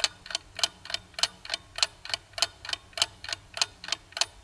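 Clock-ticking sound effect used as a countdown timer while the viewer picks an answer: a steady, even tick-tock, a louder tick about every two-thirds of a second with softer ticks between.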